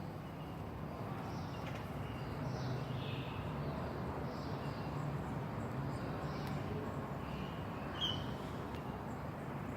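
Cat making short, high chirping calls, about one a second, with a sharper chirp near the end, over a low steady hum.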